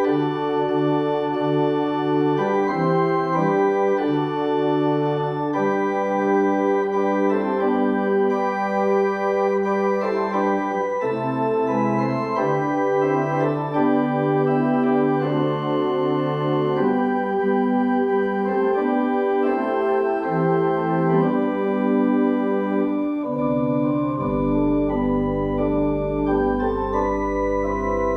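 Organ music played in slow, sustained chords. Deep bass notes come in near the end.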